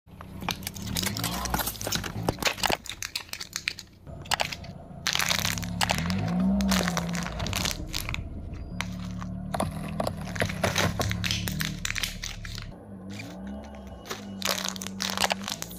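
A car tyre rolling over and crushing objects one after another, with repeated crunches, cracks and crackling: aluminium drink cans crumpling and bursting, then softer things squashing.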